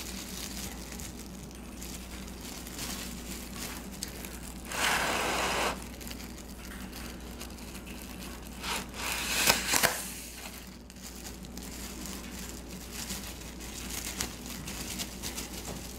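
Crinkling and rustling of handled packaging, with a louder burst of rustling about five seconds in and a couple of sharp clicks near ten seconds.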